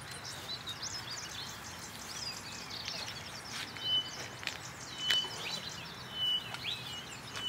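Wild birds chirping and calling together, with a short, clear high note repeated about once a second from about four seconds in.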